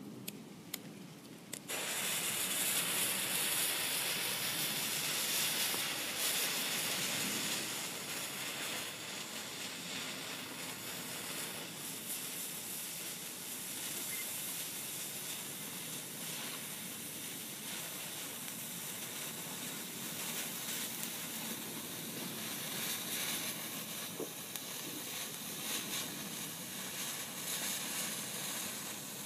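2.5 mm visco fuse burning with a steady hiss, which starts abruptly after a few short clicks near the start and carries on unbroken.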